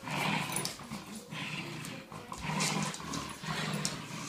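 Dogs growling in repeated rough bursts, about once a second, during a rough play-fight over a toy.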